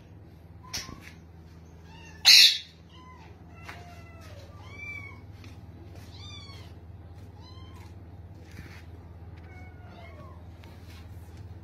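A cat meowing several times in short calls, each rising and falling in pitch, starting about three seconds in. A brief loud noise comes just before the first meow.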